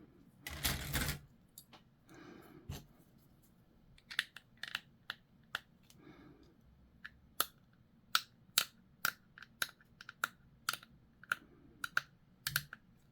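Small plastic model parts being worked with hobby tools: a brief rustle near the start, then a run of sharp little clicks and snips, roughly two a second, from about four seconds in.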